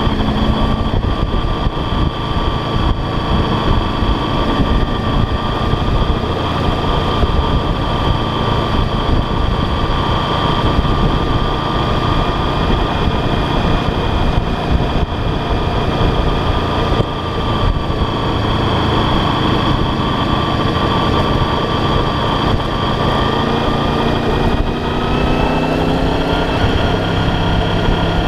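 Motorcycle engine running steadily while riding, heard with heavy wind rush on the bike-mounted microphone. The engine note changes pitch near the end as the revs change.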